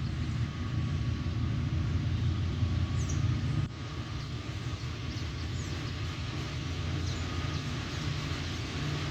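Freight train hauled by GE U20C diesel locomotives passing, a steady low rumble.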